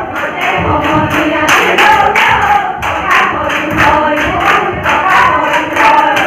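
A group of women singing a Jeng Bihu song together, over sharp rhythmic beats about three a second.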